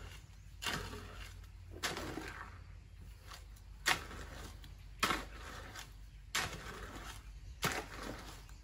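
Sharp knocks or strikes repeating at a regular pace, about one every second and a quarter, six in all, each with a short noisy tail, over a low steady hum.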